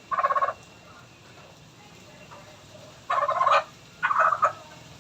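Chicken giving three short, rapid-pulsed squawks: one at the start, then two close together about three seconds in.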